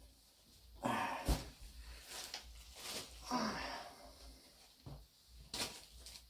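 Clothes being handled: fabric rustling in several short bursts as one garment is folded away and another picked up and unfolded, with a single knock about a second in.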